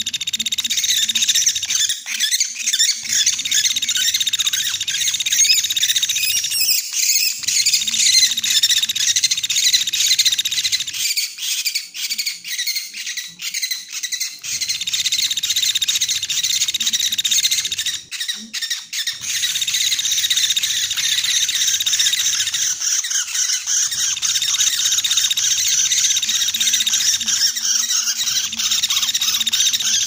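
Lure recording of Sunda pygmy woodpecker calls: a dense, unbroken run of rapid, high chirping and trilling, played continuously.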